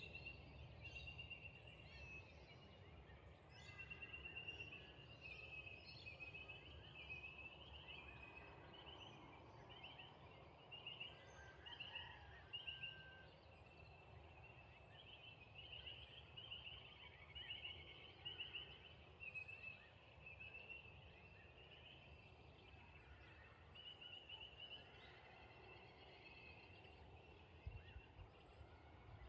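Faint outdoor dusk ambience: high-pitched chirping trills repeating in short pulsed groups, over a low rumble.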